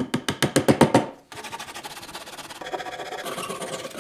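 A mallet taps a wooden dowel peg into a chair joint in a quick run of about ten strikes within the first second. Then a Japanese flush-cut pull saw rasps steadily across the peg, trimming it flush.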